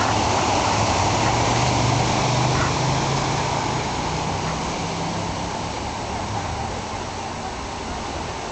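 Ocean surf washing over a rocky beach, a steady rushing noise, with a motor vehicle's engine hum that rises slowly in pitch and fades out about five seconds in.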